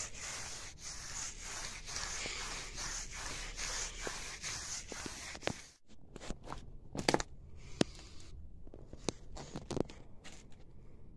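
A paintbrush scrubbing paint onto a rough wall in quick, even back-and-forth strokes. About six seconds in it stops, and after that come scattered scuffs, scrapes and sharp clicks of footsteps and handling on gritty ground.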